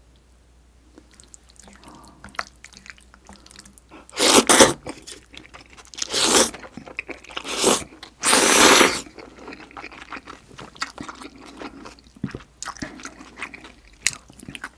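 Close-miked eating of beef-intestine hot pot: wet chewing and mouth clicks, with four loud slurps from a small bowl a little under halfway in, the last the longest.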